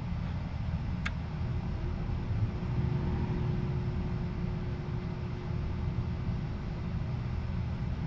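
AC Infinity duct booster fan running, a steady low rumble of the fan and the air it moves through the duct. It is still on because the duct has not yet warmed to the controller's 65 °F set point. A short sharp click comes about a second in.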